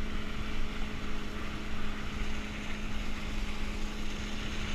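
Rushing water and wind around an inflatable tube towed at speed behind a motorboat, over a steady drone from the towing motorboat's engine.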